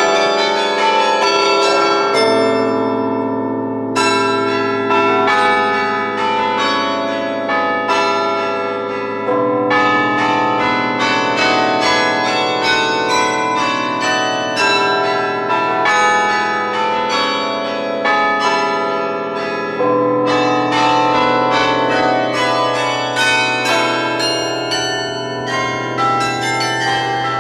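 A carillon in Sather Tower being played, heard up close: a tune struck on many tuned bells, notes following each other several times a second. Low bells under the tune ring on for many seconds.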